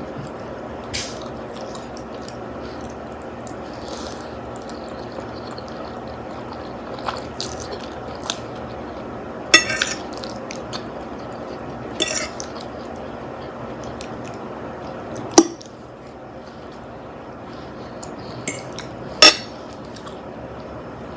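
Fork or spoon clinking and scraping against a plate while eating spaghetti, with four sharp, louder clinks spread over the stretch and smaller taps between them.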